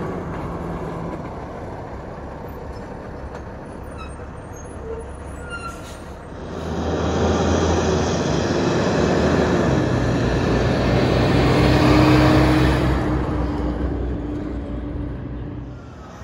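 A heavy dump truck drives past close by: its diesel engine's low drone and tyre noise swell over several seconds, peak, then fade as it goes away. Before that, quieter traffic noise from a semi pulling away.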